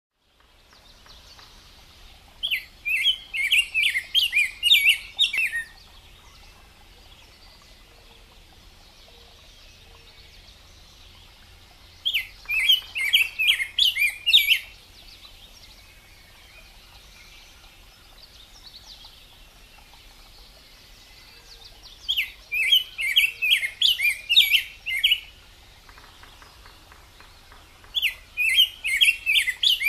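Rose-breasted grosbeak singing: four phrases of quick warbled whistles, each about two to three seconds long, with pauses of several seconds between them.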